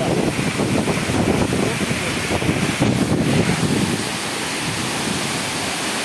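The Tortum Waterfall's falling water rushing steadily. Wind buffets the phone's microphone with a gusty low rumble for about the first four seconds, then the rush goes on more evenly.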